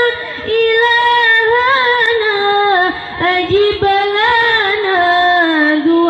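Women's voices chanting an Arabic devotional song together, with long held notes that bend and glide in pitch.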